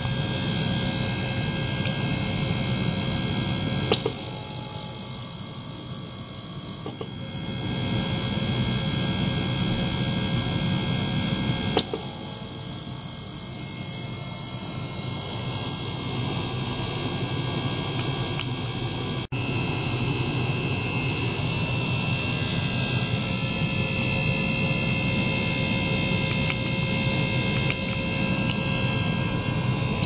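Ultrasonic cleaning bath running: a steady buzzing hiss with several constant tones. The sound changes abruptly a few times.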